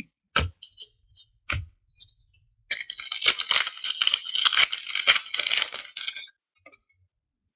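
Two sharp taps of trading cards dropped onto a pile on a tabletop, then the plastic wrapper of a hockey card pack crackling as it is torn open, for about three and a half seconds.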